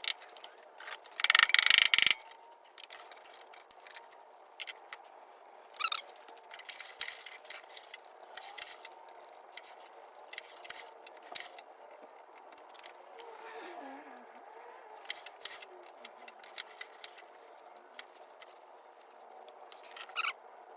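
Scattered clicks, taps and scrapes of hand tools and metal parts as a Honda lawn mower engine is taken apart to get at the valves, with a loud rattle about a second in.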